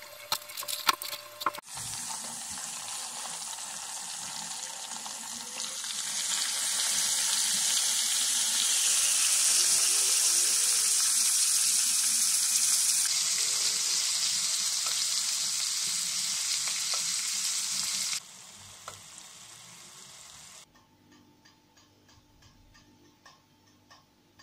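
Pumpkin and eggplant pieces sizzling as they fry in a pan: a steady hiss that grows louder about six seconds in and cuts off abruptly near the end. There are a few knocks at the very start and faint regular ticking in the last few seconds.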